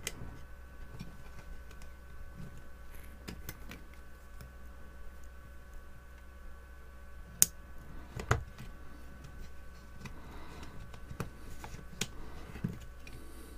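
Scattered small clicks and taps of hands handling a hair straightener's plastic casing and wiring with tweezers on a bench mat. Two sharper clicks come about halfway through, over a steady low hum.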